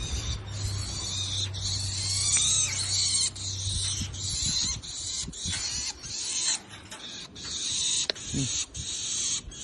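A hiss of spraying water, broken by brief gaps every second or so.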